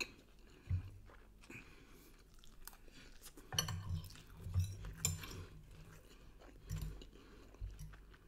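A person chewing a mouthful of food close to the microphone, with irregular small clicks and mouth noises that grow busier and louder about halfway through.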